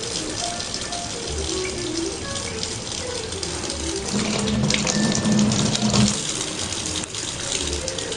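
Kitchen tap running in a thin steady stream into the sink, under background music. The sound swells louder for about two seconds near the middle.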